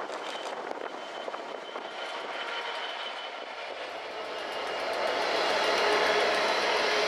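A pair of Class 67 diesel locomotives (EMD two-stroke V12 engines) running light past, with rail noise at first. The engine hum and a steady whine grow louder in the second half as the locomotives come close.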